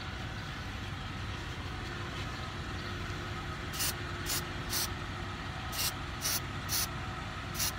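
Aerosol can of temporary blue hair-colour spray giving short hissing puffs: three in quick succession about four seconds in, three more a second later, and one near the end. A steady low background rumble runs underneath.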